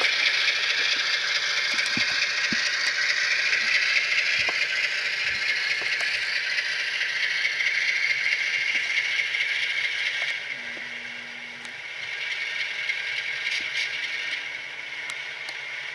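Model GE GEVO diesel locomotive running on layout track, its Tsunami sound decoder playing the diesel engine sound through a small speaker over a rattle of wheels on the rails. The sound drops in level about ten seconds in, then picks up a little.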